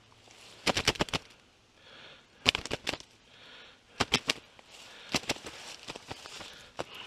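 Footsteps crunching through dry fallen leaves: about five slow steps, each a short burst of crackles.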